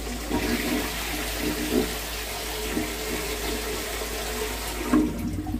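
Toilet flushing through a concealed soft-touch flush valve: water rushing and swirling in the ceramic bowl, easing off towards the end, with a brief knock about five seconds in.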